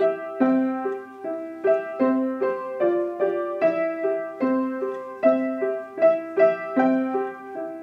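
Background music: a solo piano playing a gentle repeating pattern of single notes, about two or three a second.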